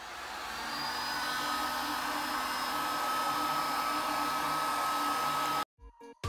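Electric heat gun blowing steadily with a fan whine, heating the aluminium steering head of a motocross frame so the metal expands to take a new steering-bearing race. It builds up over the first second and cuts off suddenly near the end.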